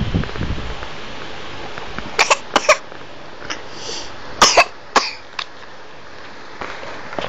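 Coughing: a quick bout of about four short, sharp coughs about two seconds in, then another bout of three or four around four and a half seconds in.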